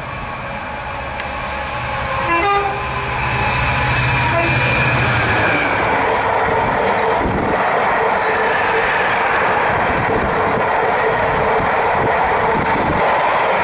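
Class 66 diesel freight locomotive running past, its two-stroke V12 diesel engine heard in the first few seconds, followed by its long train of container wagons rolling by with a loud, steady wheel-on-rail rumble.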